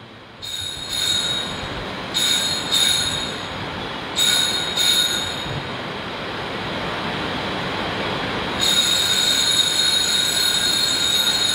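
Altar bells ringing at the elevation of the consecrated host: three short double rings, then a longer continuous ring near the end.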